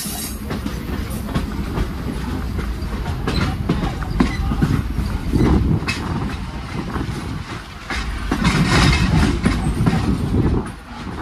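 Passenger train rolling along the track, heard from aboard: a steady low rumble of the wheels with irregular clicks and clacks over the rails. It grows louder and hissier for a couple of seconds near the end.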